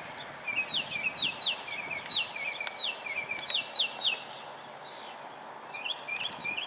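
A songbird singing a rapid series of repeated rising chirps, about four a second, which pause after a few seconds and start again near the end, over a steady outdoor background hiss.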